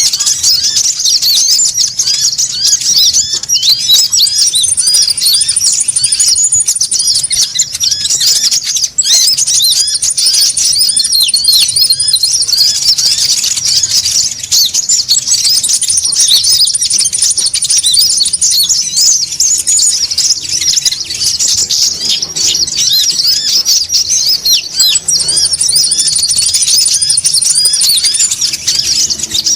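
A flock of konin birds chattering noisily in dense, rapid high chirps, used as a bird-trapping lure call. A thin, high trill comes in again and again, roughly every four seconds.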